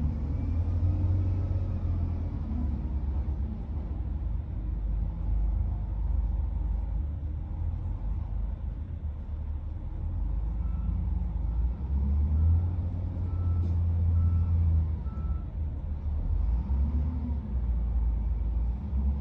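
SDLG wheel loader's diesel engine running, rising and falling as it is revved while the machine manoeuvres. Midway a reversing alarm beeps about six times, roughly once a second.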